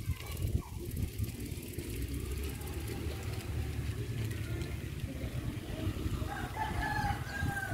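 A rooster crows once near the end, one held call of about a second, over a steady low rumble of a bicycle rolling along a paved lane.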